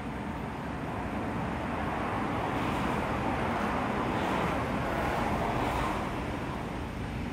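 Road traffic: a passing vehicle whose noise swells over a couple of seconds and fades again near the end, over a steady low traffic rumble.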